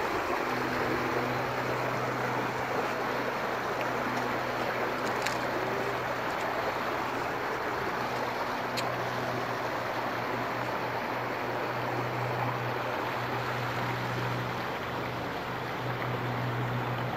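Shallow river water running over rocks, a steady rush, with a steady low hum underneath that fades and returns.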